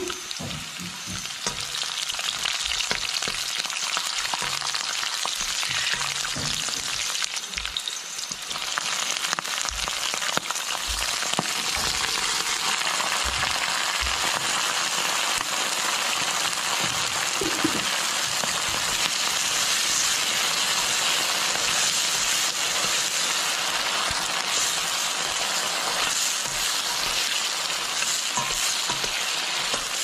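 Hot oil sizzling steadily in a stainless steel wok as garlic, chili and cicadas deep-fry, while a metal ladle stirs them, with a few soft knocks against the pan.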